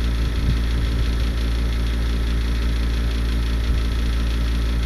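Steady low mechanical hum, like a motor or engine running, with a constant droning pitch and no change in level.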